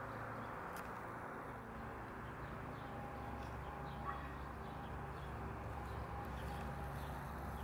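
Faint outdoor background noise: a steady low rumble, with a short faint chirp about four seconds in.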